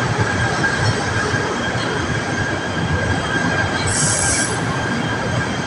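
Container wagons of a freight train rolling past close by, a steady rumble of steel wheels on rail with a thin, high wheel squeal held throughout. A brief high hiss sounds about four seconds in.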